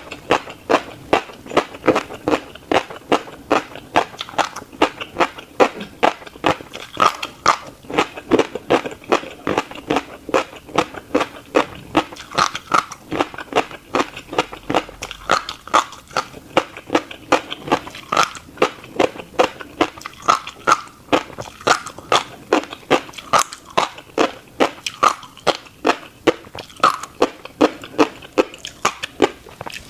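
A person chewing a mouthful of tiny black seeds close to the microphone: steady, rhythmic crunches, two or three a second.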